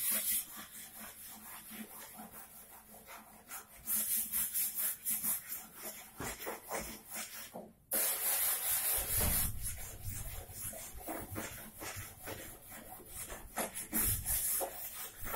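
Wood being sanded by hand, sandpaper rubbing in spells of quick strokes, loudest about four, eight and fourteen seconds in.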